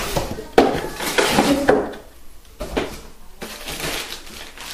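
Cardboard scraping and knocking as a cardboard packing insert is pulled out of a carton, loudest in the first two seconds with a few sharp knocks. After that comes quieter rustling of a plastic bag being lifted out.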